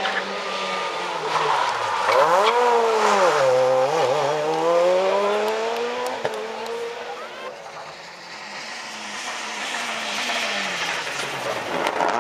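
Rally car engine at high revs, its pitch falling and climbing several times as it brakes, shifts down and accelerates through a corner. It fades about two-thirds of the way through, then an engine grows louder again near the end.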